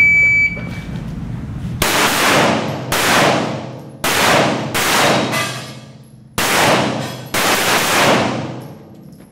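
A shot timer beeps once, then a handgun fires seven shots, roughly one a second, each ringing with a long echo off the walls of an indoor range.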